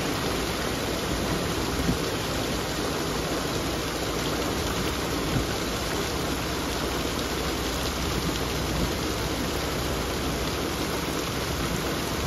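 Heavy rain falling steadily, with runoff pouring off a roof edge and splashing onto the ground below.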